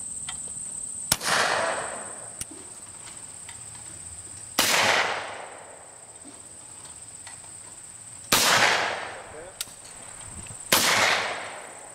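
Four shotgun shots at clay targets, each a sharp crack followed by about a second of fading echo, a few seconds apart. A steady high insect buzz runs underneath.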